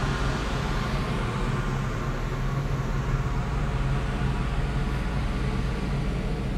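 Steady low drone of the car ferry Lavender's machinery, its engines and funnel exhaust, on the open top deck, with several steady humming tones over an even rush of air.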